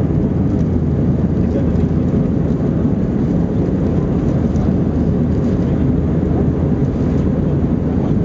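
Steady drone of an Airbus A321-231 in flight, heard inside the passenger cabin: its IAE V2500 jet engines and the rushing airflow make a constant low, even noise.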